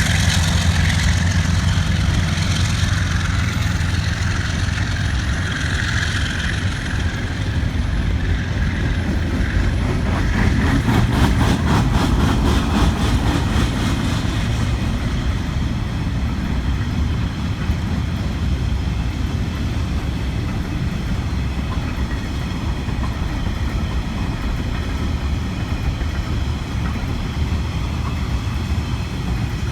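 DCP and DXR class diesel-electric locomotives running hard, a deep steady engine drone. A rapid rhythmic clatter comes in about ten seconds in and lasts a few seconds, and the sound slowly fades toward the end as the train moves away.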